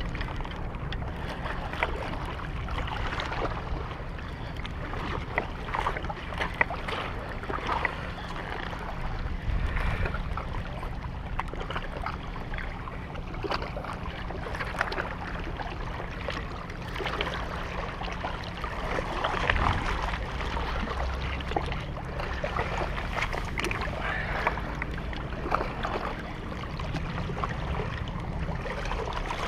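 Wind buffeting the microphone and small waves lapping against shoreline rocks, with scattered small clicks and knocks from handling a baitcasting rod and reel.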